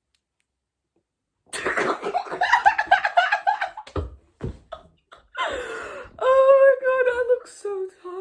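A young woman's wordless vocalizing: quick, choppy laugh-like sounds, a few short mouth noises, then a drawn-out sung-like note that steps down in pitch near the end.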